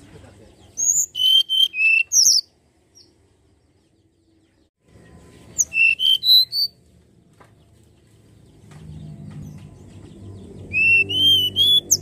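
Hill blue flycatcher singing: three short phrases of clear, high whistled notes a few seconds apart, over a low background rumble that grows in the second half.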